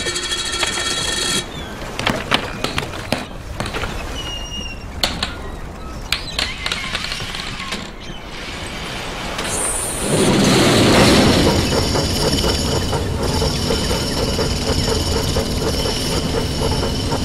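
Sound-effects soundtrack of a stop-motion animation: scattered clicks and knocks with short whistling tones, then from about ten seconds in a louder, denser mechanical rumble with steady ringing tones above it.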